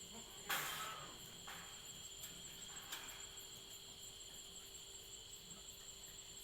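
Crickets chirping steadily at night in a high, even trill. A brief rustling noise comes about half a second in.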